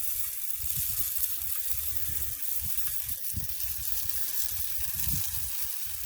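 Bird seed pouring from a can through a plastic funnel made from a 2-liter bottle top into a feeder: a steady hiss, with irregular low rumbles underneath.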